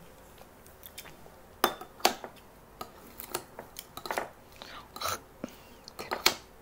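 Kitchen scissors snipping food in a bowl: a series of short, sharp snips and clicks at irregular intervals, roughly a second apart.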